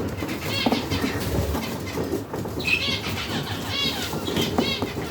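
Budgerigars chirping and chattering in short repeated calls, mixed with small clicks.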